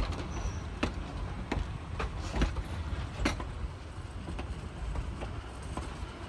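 Train of vintage passenger coaches rolling past: a steady low rumble, with sharp clicks of the wheels over the rail joints about once a second.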